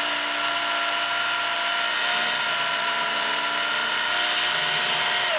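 Work Sharp electric belt sharpener running steadily, with a steel ice-auger blade held against the moving abrasive belt. It gives a steady motor whine over a grinding hiss, and its pitch starts to fall as it is switched off at the very end.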